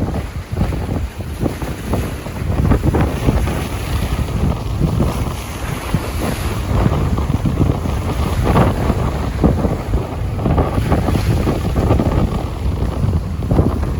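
Strong wind buffeting the microphone in uneven gusts, over the splash of wind-driven choppy river waves.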